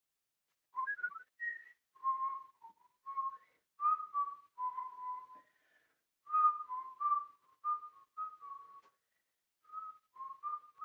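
A woman whistling a tune: a run of short, separate notes with small gaps between phrases, starting about a second in.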